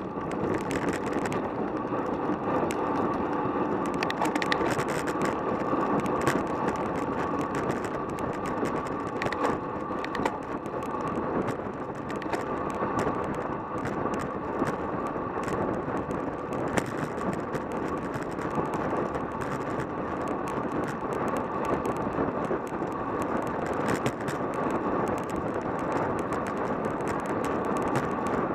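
Steady rush of wind over the microphone and tyre noise from a road bike riding at about 35 mph, with many small rattling clicks throughout.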